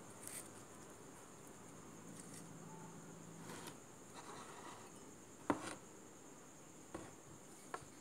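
Faint rustling of leaves being handled, then three light knocks, the loudest about five and a half seconds in, as a ceramic mug is handled on a table, over a steady faint high hiss.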